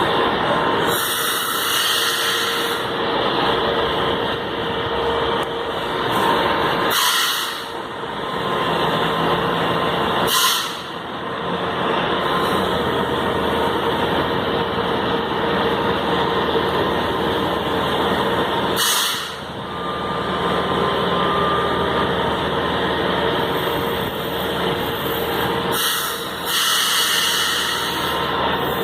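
São Paulo metro train at the platform with its machinery running steadily, broken by about six short hisses of compressed air from its brakes.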